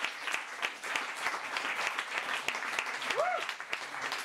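Audience applauding, a dense patter of many hands clapping, with a brief rising-then-falling whoop from the crowd about three seconds in.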